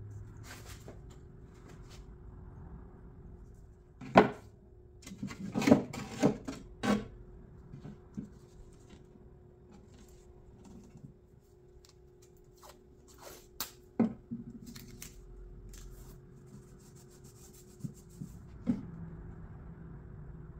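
Wooden pieces being handled and set into a wooden table frame: scattered knocks and taps, a cluster about four to seven seconds in and another around fourteen seconds, with softer rubbing between, over a faint steady hum.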